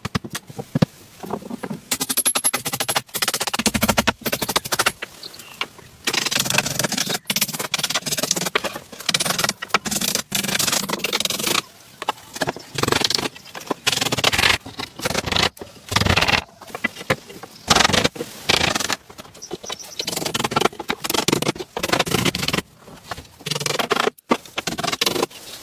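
Irregular scraping and knocking in short bursts, with sharp clicks between them.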